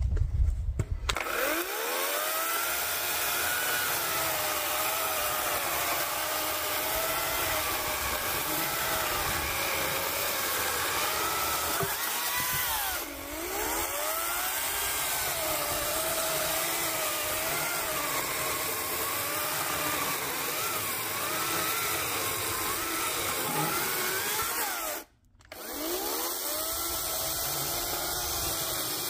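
Parkside PKSA 40-Li A1 40 V cordless electric chainsaw cutting through an oak log: a motor whine that wavers in pitch as the chain bites into the wood. It spins up about a second in, sags briefly about halfway, and cuts out for a moment near the end before spinning up again.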